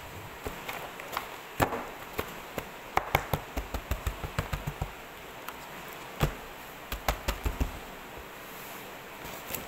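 Thick stack of paper sheets being jogged square on a desk, a palm slapping its top edge and the stack knocking down on the wood: a string of short knocks, in two quick runs of several a second with single knocks between. The sheets are being evened up before hole-punching.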